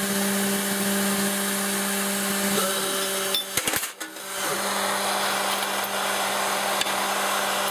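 Bench Source automatic annealing machine running: the steady hiss of its two gas torch flames over a low electric hum. About halfway through there is a brief dip with a few clicks before the steady hiss resumes.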